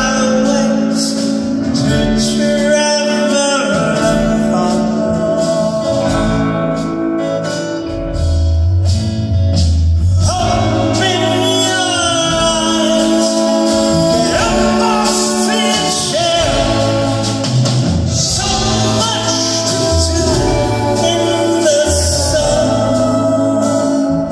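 Male lead vocal singing a song with a live band backing him: acoustic guitar, pedal steel guitar, keyboards and drums.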